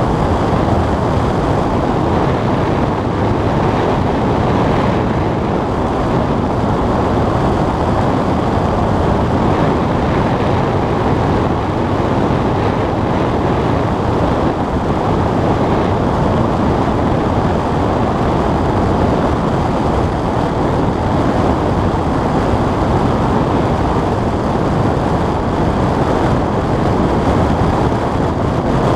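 Steady rush of wind and airflow over a small aircraft in flight, buffeting the microphone, with no change.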